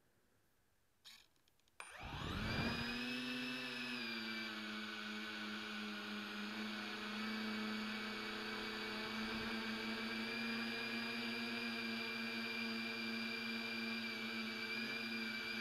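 Tricopter's three brushless motors and propellers spooling up fast about two seconds in, with a quick rising whine, then running steadily in flight with a buzzing whine that wavers slightly with throttle. Heard from a camera on board the aircraft.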